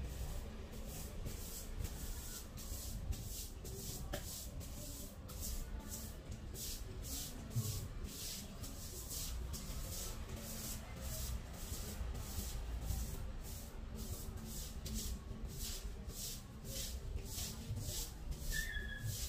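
Bristle broom scrubbing a wet ceramic tile floor in quick back-and-forth strokes, about three scratchy strokes a second.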